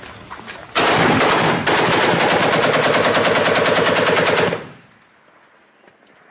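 Assault rifle fired on automatic at close range: a short burst about a second in, then a long burst of about three seconds that cuts off suddenly.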